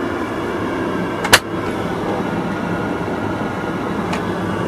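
Steady airliner cabin noise in flight, the engines and air system heard inside the lavatory, with a faint hum. One sharp knock about a second in, and a faint tick near the end.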